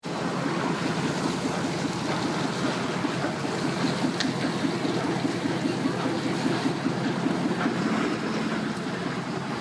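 Pickup truck engine running steadily as it tows a boat on its trailer up the launch ramp, with water streaming off the hull and trailer.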